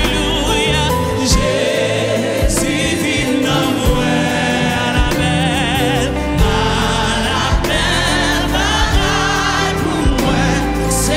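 Live gospel music: a woman sings a Haitian Creole worship song with vibrato over an electric keyboard and drums, with other voices singing along behind her.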